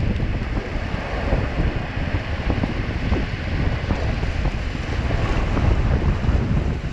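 Ocean surf washing and breaking around the camera at water level, with heavy wind rumble on the microphone.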